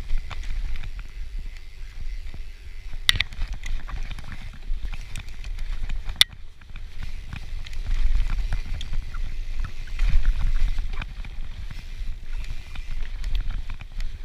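Cannondale FSI Carbon 2 mountain bike ridden along a dirt forest trail: a constant low rumble with rattling and clicking from the bike over the ground, and two sharp clacks about three and six seconds in.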